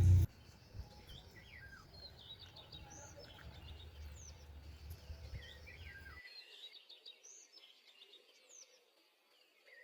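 Birds chirping: many short, quick calls that rise and fall in pitch, over a faint low hum that cuts off about six seconds in. A loud low rumble stops just at the start.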